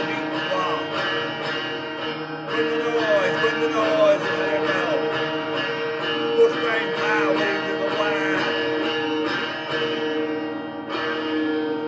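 Music with guitar, without clear singing.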